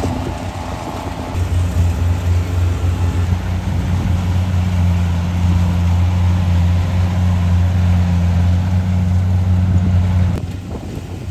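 Rice combine harvester's engine running steadily as it cuts rice, a steady low drone that grows louder after about a second and a half and drops away abruptly near the end.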